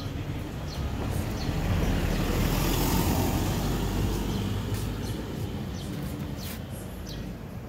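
Freshly rebuilt Yamaha XJR400 air-cooled inline-four engine running on its first start, swelling louder about two seconds in and easing back after about four and a half. Birds chirp throughout.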